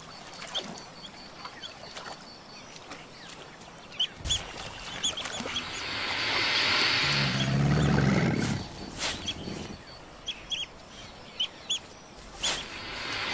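Smooth-coated otters chirping in many short, high squeaks while mobbing a crocodile. About six seconds in, a loud hissing growl swells up and dies away by about eight and a half seconds.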